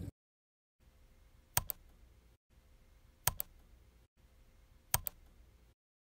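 Three double clicks about 1.7 s apart, each a sharp click followed quickly by a softer one, over a faint hum.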